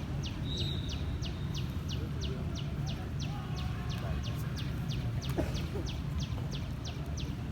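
Steady high chirping, short falling notes repeated about three times a second, over a low continuous rumble.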